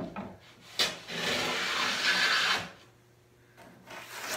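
A couple of wooden knocks, then one long hand-plane stroke of about a second and a half, a metal bench plane shaving along a walnut panel; fainter rubbing and knocks near the end.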